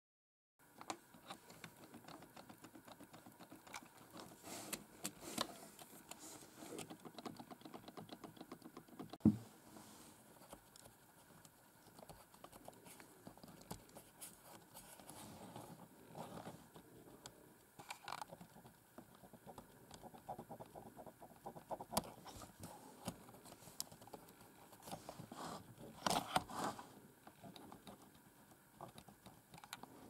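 Large keycaps on a Cherry G83-6105 membrane keyboard, the Enter key among them, being pressed and wiggled by a finger: a run of light plastic clicks and rattles with a few louder knocks. The rattle comes from keys grown a little shaky after 11 years of wear.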